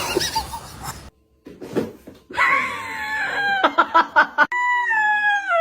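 A high-pitched drawn-out scream that slides down in pitch and ends in a long held cry, after a short stretch of noisy clatter in the first second.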